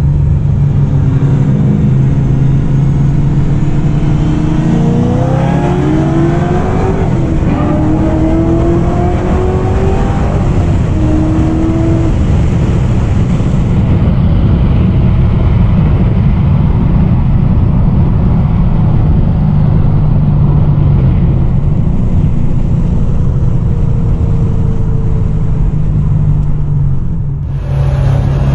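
Car engine running steadily at low revs, with engine notes rising in pitch from about 5 to 12 seconds in, and an abrupt change in the sound near the end.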